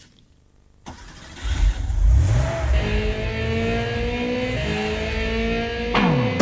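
Car engine sound effect: a click about a second in, then the engine revs. From about three seconds it holds a slowly rising note as it accelerates, with a quick falling sweep near the end.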